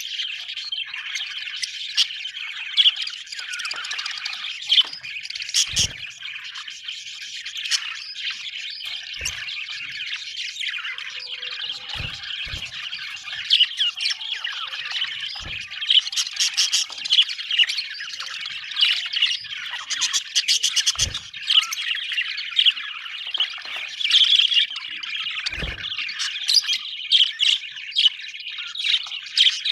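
A group of budgerigars chattering and chirping continuously, a dense warble broken by sharp squawky chirps. Several short low thumps come through now and then.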